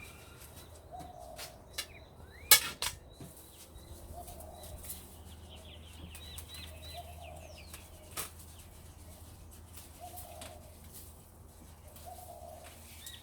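Birds calling: a low call repeated every couple of seconds, with higher chirps in the middle, and a few sharp snaps, the loudest about two and a half seconds in.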